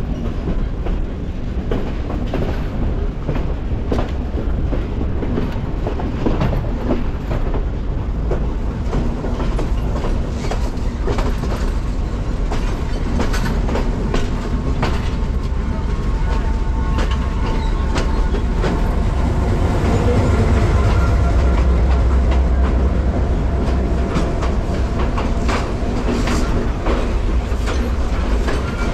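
Diesel-hauled passenger train running along the track, heard through an open carriage window: a steady rumble with the wheels clicking over rail joints. The low rumble grows heavier about two-thirds of the way through.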